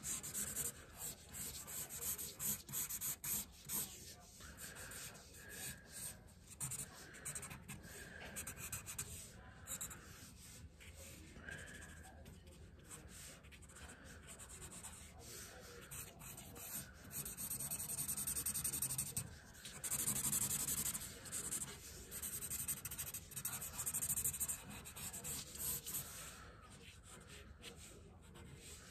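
Black felt-tip marker scratching across paper in quick back-and-forth hatching strokes, shading in hair, with a run of longer, denser strokes a little past halfway.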